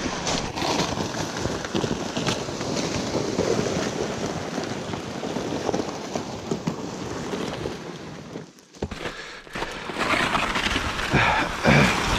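Plastic toboggans loaded with gear scraping and sliding over icy, crusted snow as they are hauled downhill, with many small irregular scrapes. The sound drops out briefly about two-thirds of the way through.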